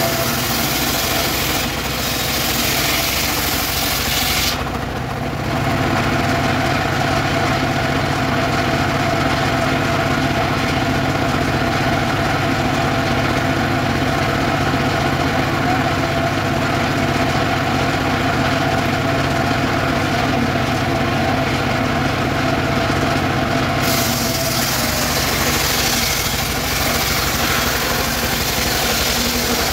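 Engine driving a portable circular sawmill, running steadily with the saw blade spinning free between cuts. A harsher hiss rides over it for the first few seconds and comes back for the last several seconds.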